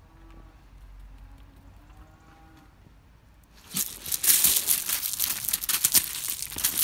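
Gravel crunching loudly under a dog's paws as it gets up and scrambles about, starting suddenly a little over halfway through. Before that it is quiet, with a few faint drawn-out calls.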